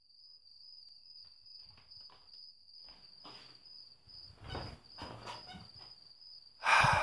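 A cricket trilling steadily in a high, slightly pulsing tone, with soft rustling and shuffling as someone settles into bed, and a louder burst of noise near the end.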